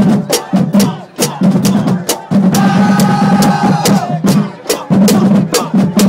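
Handheld cowbell struck with a stick in a quick, steady pattern over a drumline's bass and snare drums.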